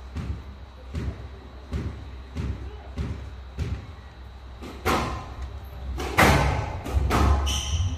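A squash ball is bounced on the court floor at a steady pace, about six low thuds, while a player readies to serve. From about five seconds in come louder, sharper racket strikes and ball impacts on the walls of a glass squash court as the rally starts.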